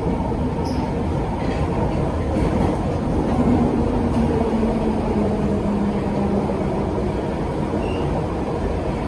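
London Underground 1972 Stock train running, a steady rumble of wheels on the rails under a low motor whine that drops slightly in pitch in the middle.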